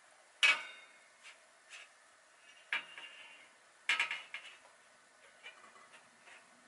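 Aluminium baking tray clanking three times with a short metallic ring, the first about half a second in and the loudest, as cupcakes in paper cups are handled on it, with lighter taps in between.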